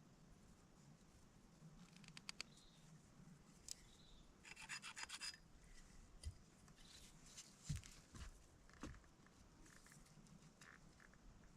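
Near silence broken by faint scattered rustles, scratches and clicks, with a short run of rapid light ticking about halfway through.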